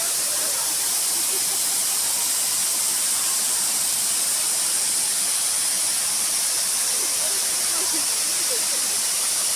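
Steady rush of falling water from a waterfall, an even hiss that does not change.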